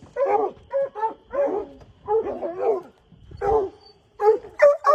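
A dog barking repeatedly: about a dozen short, sharp barks in quick runs, with a brief pause near the middle.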